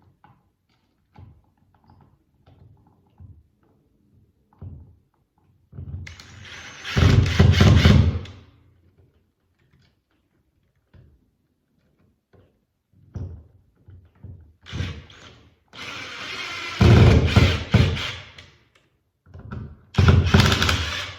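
Electrical outlet being pushed into its wall box and fastened in place: faint clicks and knocks, then three loud, noisy bursts of tool and handling noise lasting a couple of seconds each.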